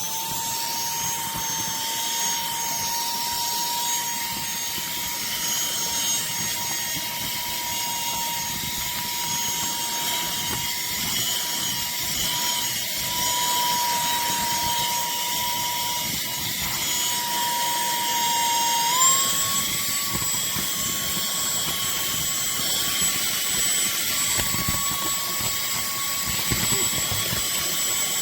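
Cordless handheld vacuum cleaner running with a steady high motor whine and a rush of air. About 19 seconds in, the pitch steps up as it switches to the higher of its two speed settings.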